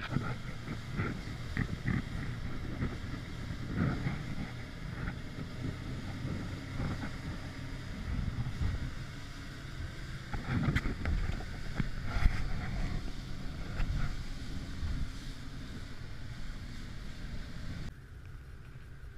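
Small motorboat running fast over choppy sea: engine rumble, the hull slapping through the waves, and wind buffeting the microphone. It gets noticeably quieter about a second before the end.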